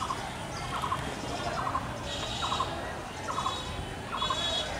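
A bird calls over and over with a short note cluster about once a second. A higher buzzing trill comes and goes behind it.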